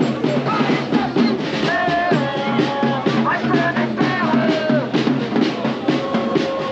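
Music with a steady drumbeat, with voices over it.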